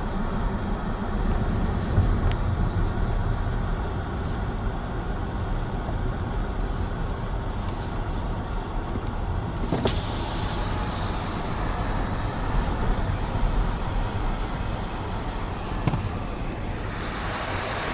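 A car driving, heard from inside the cabin: steady engine and tyre noise on the road, with a single sharp knock about halfway through.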